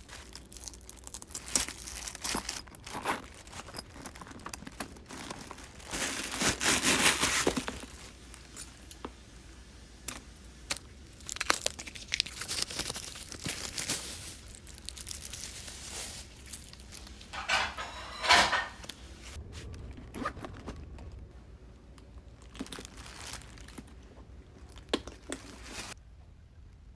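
Packaging being unwrapped from a handbag: irregular crinkling, rustling and tearing, with two longer, louder bursts of crinkling, one about a quarter of the way in and one about two-thirds of the way in.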